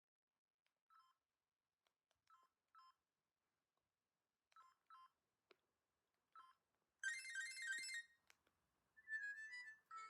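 Vodafone 227 mobile phone sounding short beeps, six in the first six and a half seconds, then a one-second ringtone burst about seven seconds in and another ringtone melody starting near the end.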